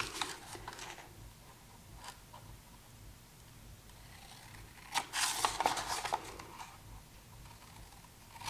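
Scissors snipping the corners of a paper book cover, with paper rustling. The cuts and rustle are quiet, busiest from about five seconds in, with a near-still stretch before.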